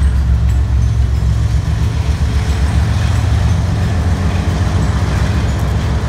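Diesel-electric freight locomotives running as they pass close beneath, a steady low engine rumble with the noise of the moving train over it.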